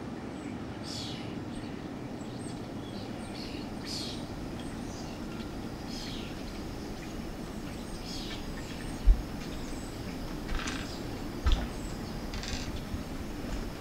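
Night-time room ambience: a steady low hum with scattered short, high chirps throughout. Two dull low thumps stand out, one about nine seconds in and a second about two and a half seconds later.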